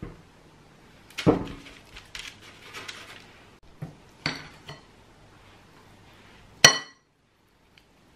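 A metal spoon knocking and scraping against a glass mixing bowl while scooping cookie dough. There is a dull knock about a second in, scattered clatter after it, and a sharp ringing clink near the end, the loudest sound.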